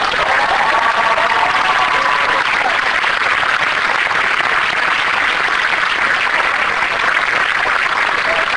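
Audience applauding steadily, with some cheering in the first couple of seconds.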